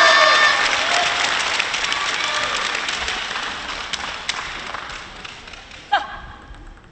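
Spectators applauding in a sports hall, loudest at first and dying away over about six seconds. A short, sharp squeak with a falling pitch comes near the end.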